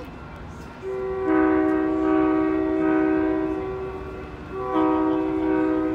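Approaching commuter-train locomotive sounding its multi-note air horn: a chord of several steady notes, one long blast of about three seconds starting about a second in, then after a short break a second blast near the end.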